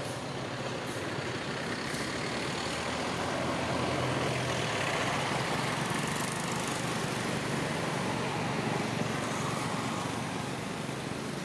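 A motor vehicle's engine running as it passes, a steady rumble that swells to its loudest around the middle and eases off near the end.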